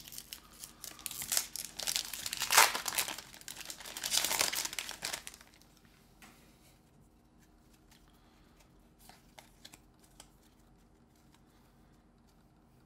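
Foil Pokémon booster pack wrapper being torn open and crinkled for about five seconds, with the loudest rips near the middle and toward the end of that stretch. Then near silence with a few faint ticks.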